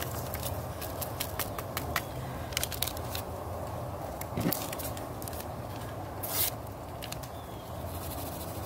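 Crinkling and tearing of a small foil sazón seasoning packet, torn open and shaken over fish in a stainless steel bowl. Sharp crackles come thick in the first few seconds, with a longer rustle near the middle, over a steady low hum.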